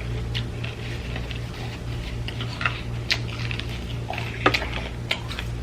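Close-miked eating: wet chewing and mouth clicks come at irregular moments over a steady low hum.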